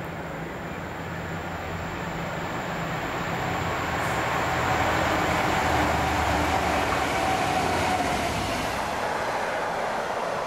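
Class 66 diesel-electric locomotive (EMD two-stroke V12) approaching and passing at speed, its engine note growing louder and peaking around five to eight seconds in. Car-carrier freight wagons loaded with new cars then follow, their wheels rumbling steadily on the rails.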